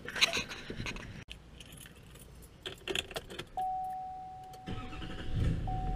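Keys jangling and clicking as the driver gets into a GMC Sierra pickup, then a steady single warning tone from the truck a little past halfway. Near the end the truck's engine cranks and starts, a low rumble that grows louder.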